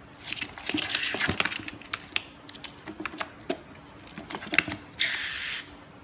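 A bird scrabbling about in a cardboard box: its claws scratch and tap on the cardboard in a flurry of clicks, with a short rushing flutter about five seconds in.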